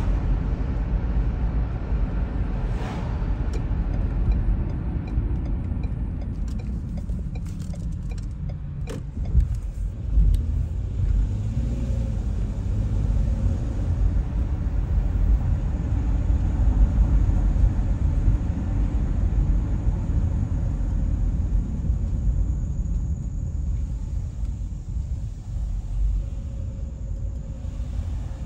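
A car driving along city streets: a steady low rumble of engine and tyre road noise, with a few sharp knocks about nine to ten seconds in.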